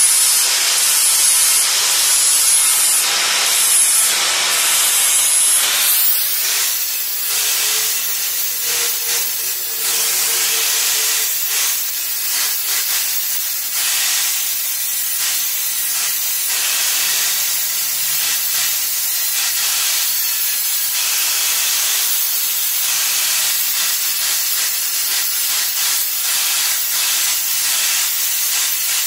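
Handheld angle grinder running with its disc pressed against a hardened D2 tool-steel straight-razor blade, a loud, steady grinding hiss that goes on throughout.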